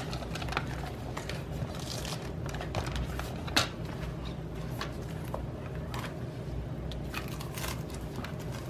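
Plastic binder parts and cover being handled and pushed together, with scattered rustles and small clicks and a sharper click about three and a half seconds in, over a low steady hum.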